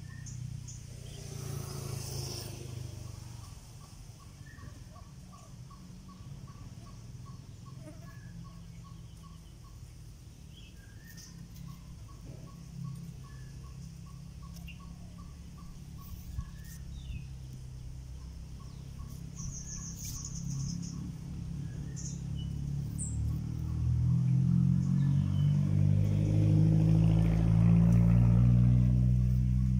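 A motor vehicle's engine hum, low and steady, growing louder and rising in pitch over the last few seconds as it draws near. Faint bird chirps and a regular ticking call of two to three pips a second sound behind it.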